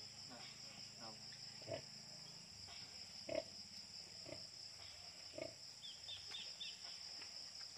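Crickets and other night insects chirping steadily, with a few short grunts and squeaks from a nursing sow and her newborn piglets, including a quick run of small squeaks near the end.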